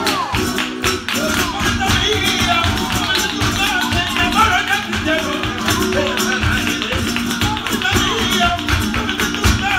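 Live flamenco soleá: a dancer's rapid footwork (zapateado), sharp stamps and heel taps on the stage, over flamenco guitar.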